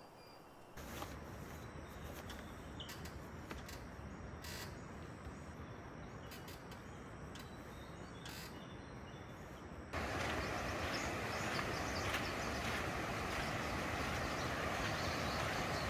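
Steady outdoor background noise with scattered faint chirps, jumping abruptly to a louder steady noise about ten seconds in.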